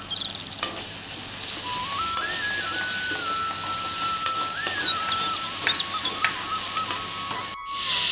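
Wet herb-leaf paste, potatoes and onions sizzling in hot oil in a kadai, stirred with a metal spoon that scrapes and taps the pan now and then. A thin single-note melody steps up and down in pitch behind the sizzle.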